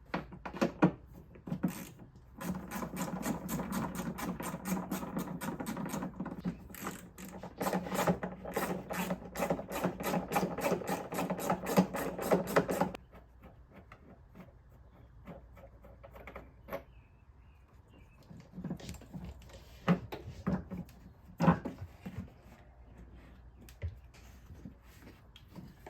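A small motorised hand tool runs for about ten seconds with a steady hum and rapid clicking, likely a cordless driver or ratchet working fasteners loose. It then stops suddenly, followed by scattered light clicks and knocks of hand work on the engine bay parts.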